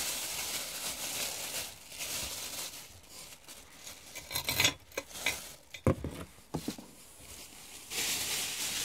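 A plastic bubble wrap bag and packing material rustling and crinkling as they are handled in a cardboard box, with a few knocks about halfway through.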